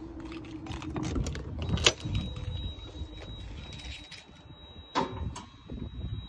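Side entry door of an Airstream Atlas being unlocked and opened, with keys rattling. The latch clicks sharply about two seconds in, then the door swings open and the entry step comes out, with a clunk near five seconds and a thin steady high tone underneath.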